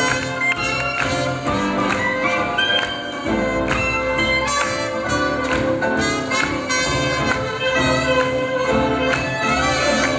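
Live swing jazz band playing a tune, with horn lines over a steady beat.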